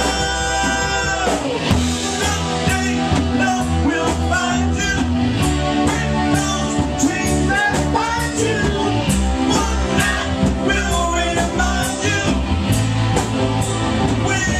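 Rock song with singing over guitar and drums, a steady driving beat; a held note slides down about a second and a half in.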